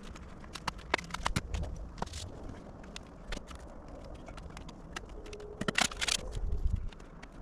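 Hand work noises as a ventilation pipe is fitted and its hole sealed: scattered light clicks and knocks, with a brief louder scraping rustle about six seconds in.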